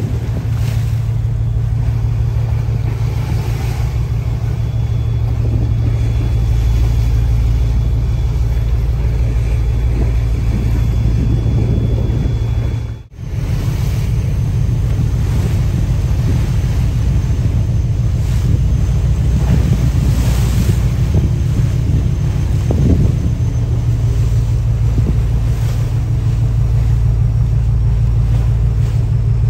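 A small boat's engine runs with a steady low drone, under wind buffeting the microphone and the wash of choppy sea. The sound breaks off for an instant about halfway through.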